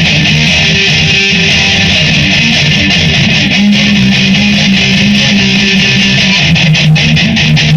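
Electric guitar strummed steadily in an instrumental passage with no singing, recorded on a phone.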